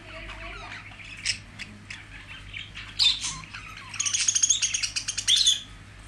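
Pet budgerigars chirping and warbling in a cage, with a sharp louder chirp about halfway through and then a fast, clicky run of chatter.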